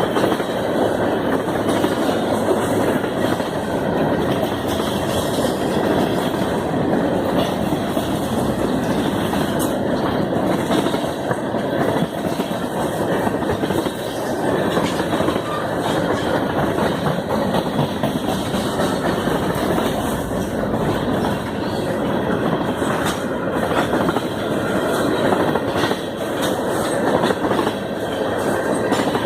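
Railcars of Canadian Pacific train 293 rolling past, a continuous steady noise of steel wheels on the rails with faint scattered clicks.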